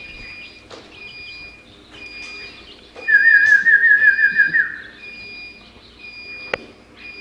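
Bird calls: short high whistled notes repeating about once a second, and a loud rapid warbling trill from about three seconds in that lasts a second and a half and ends with a falling slur.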